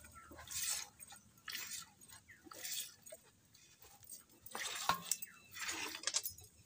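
Milk squirting from a cow's teats into a steel bucket during hand-milking: a hissing spurt about once a second, with one sharp knock a little under five seconds in.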